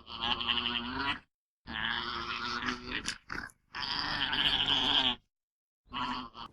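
Animal calls: three long, pitched cries, each a second or more, cut off sharply by silence between them, with a shorter call near the end.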